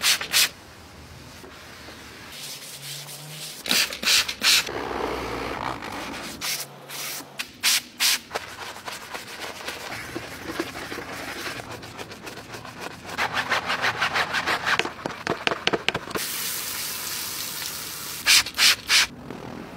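Detailing brushes scrubbing car surfaces, a run of short bristle strokes, in places several a second, broken by abrupt changes between clips. Near the end a steady hiss of water spray rinsing a wheel.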